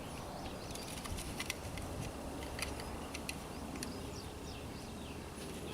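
Quiet outdoor background with scattered light clicks and a few faint high chirps from birds.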